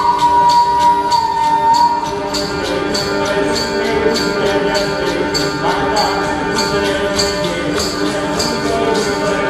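Music: a steady jingling percussion beat, about two strikes a second, under long held melody notes that slide gently in pitch.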